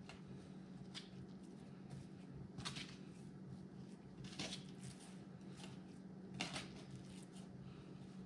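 Gloved hands patting and moving raw walleye fillets on a baking tray: a few short, soft taps and squishes, over a steady low hum.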